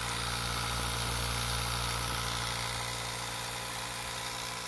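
3D-printed pulse motor, its magnet rotor spun by pulsed coils, running steadily on about 9 volts with a low hum and a whir, slightly louder for the first few seconds and then easing a little.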